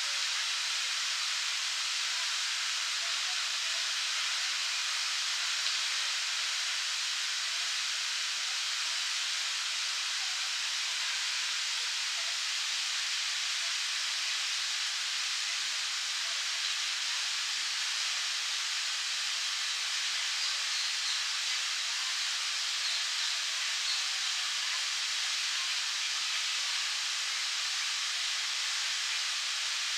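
Park fountain's water jet falling and splashing into its basin: a steady, even rush of water.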